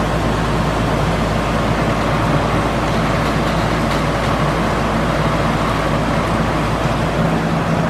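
Crawler piling rig's engine running steadily, a loud, even mechanical drone with a low hum.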